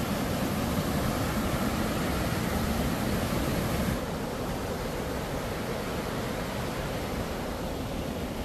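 Steady rushing of a waterfall, growing a little quieter and duller about four seconds in.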